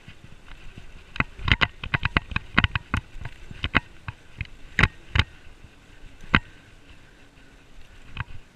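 Bicycle rattling and clicking while being ridden up onto a footbridge: a run of sharp, irregular knocks, thickest in the first half, with a few single ones later, over a faint steady hiss of riding.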